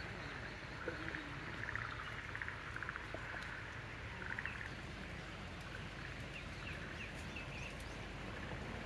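Light rain falling steadily, with a few short, rapidly pulsed chirping calls of small animals over it.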